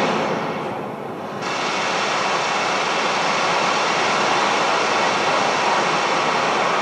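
Steady roar of rushing water from a waterfall sound effect, played through theatre speakers. The sound dips briefly about a second in, then swells back up and holds steady.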